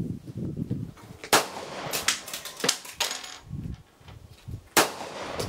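M1911 pistol firing .45 ACP: two loud shots about three and a half seconds apart, with a few fainter sharp cracks between them.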